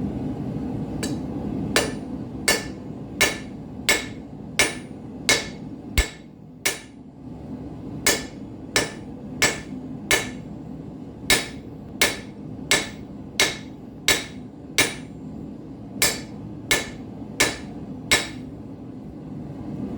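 Hand hammer striking hot steel on an anvil, about one blow every 0.7 s in runs of four to eight with short pauses, drawing out nail stock on its first heat, which has not heated it all the way through. A propane forge runs steadily underneath.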